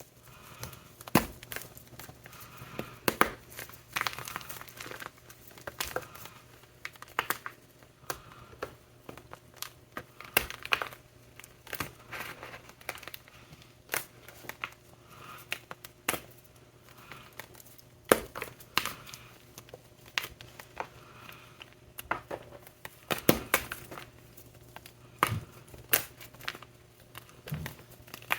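Blocks of gym chalk topped with shaving gel being crushed, crumbling and cracking in irregular sharp snaps.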